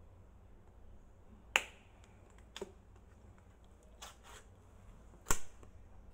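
Sharp clicks and knocks of a white ceramic bowl being handled while meat is mixed in it by a gloved hand. There are about six of them, the loudest about a second and a half in and again about five seconds in.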